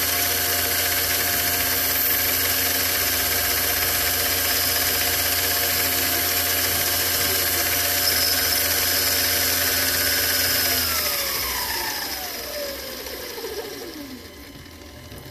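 Metal lathe running with a steady motor and gear whine, then winding down about eleven seconds in, its whine falling in pitch as the chuck slows.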